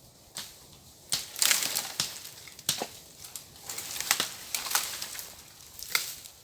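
Dry brush crunching and snapping: a run of crackly crunches and sharp cracks starting about a second in, with several loud snaps.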